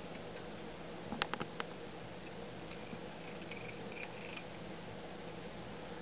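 Kitten's teeth clicking against a metal belt buckle as it chews on it: a quick cluster of about four light ticks about a second in, over a steady room hum.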